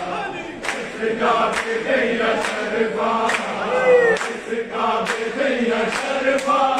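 A crowd of men chanting together in unison, with steady clapping a little less than once a second. A short loud gliding cry rises above the group about four seconds in.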